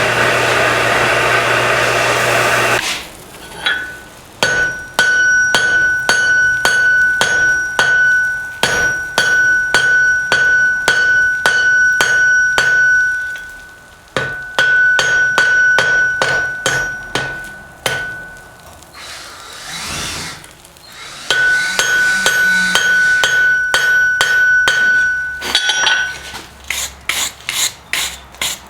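Blacksmith's hammer striking hot barbed wire on an anvil, about two blows a second, each with a bright ring from the anvil. It opens with a few seconds of steady rushing noise with a low hum, pauses briefly partway through, and ends with a run of quicker, lighter taps.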